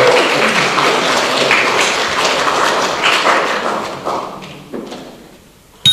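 A small audience clapping, dense at first and dying away over about five seconds, with a sharp knock near the end.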